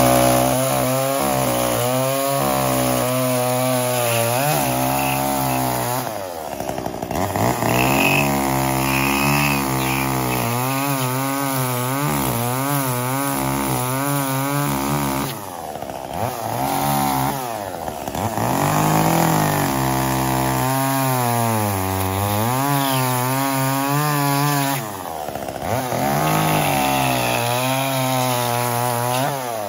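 Echo CS-345 two-stroke chainsaw running at full throttle while cutting into a stump. Its pitch sags as the chain bites and then recovers, and the throttle eases off briefly three times. With the high-speed screw turned an eighth richer, it holds its speed in the cut instead of bogging down.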